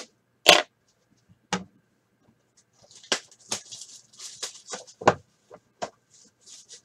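A few sharp clicks and knocks as a cardboard trading card box is handled and opened, the loudest about half a second in. From about three seconds in, the crisp crinkling of a cellophane-wrapped card pack handled in the fingers.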